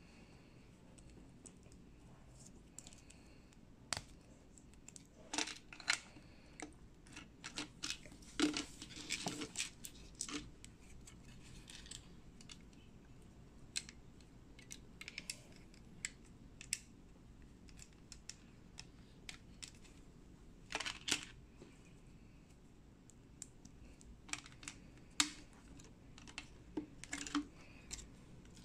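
Small plastic building bricks being handled and pressed together: irregular light clicks and snaps, sometimes several in quick succession.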